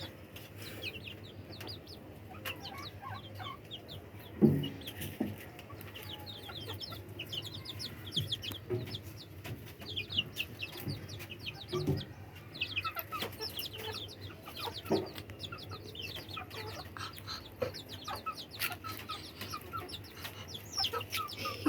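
Chickens calling: a near-continuous run of short, high, falling peeps, with now and then a louder low cluck, the loudest about four seconds in.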